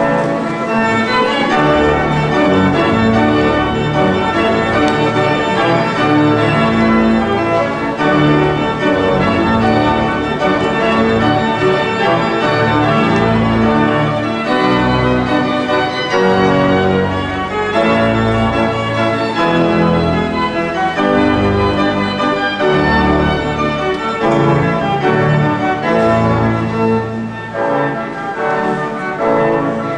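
Church organ playing continuous, full-voiced music with sustained chords over a moving bass line, accompanying the recessional procession.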